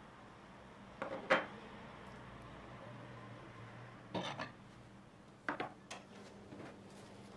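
Light clinks and knocks of small glass bowls being handled and set down: a sharp one about a second in, a cluster about four seconds in, and a few more after five seconds.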